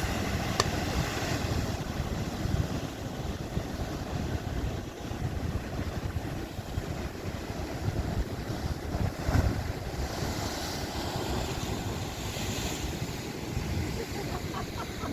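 Atlantic surf breaking and washing on the shore as a steady rushing noise, with wind buffeting the microphone.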